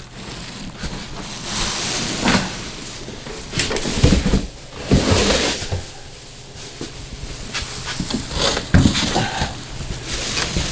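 Cardboard box and packing material rustling and scraping, with several knocks, as a boxed generator is worked out of its packaging.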